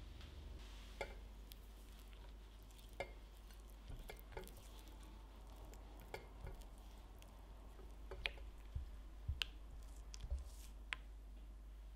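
Silicone spatula stirring white chocolate as it melts in a glass bowl, a soft wet stirring with scattered clicks and taps of the spatula on the glass. The taps come more often in the last few seconds.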